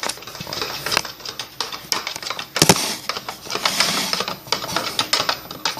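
Slime being stirred and worked in a mixing bowl: rapid, irregular clicks and taps, with one sharper knock a little before the middle.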